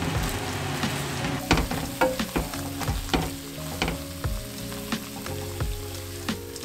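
Udon-style noodles and kale sizzling in a frying pan while tongs toss them. From about a second and a half in there are irregular clicks of the tongs knocking against the pan.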